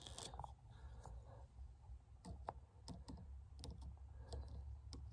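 Faint, scattered small plastic clicks and taps as a blade fuse is handled and fitted into a fuse block, over a faint low hum.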